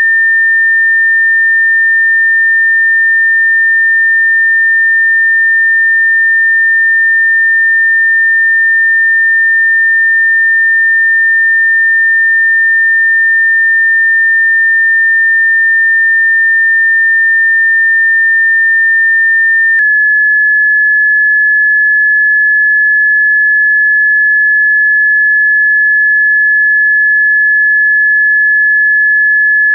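Electronically generated pure sine tone, a Rife frequency, held high and steady; about twenty seconds in it switches with a faint click to a slightly lower pitch.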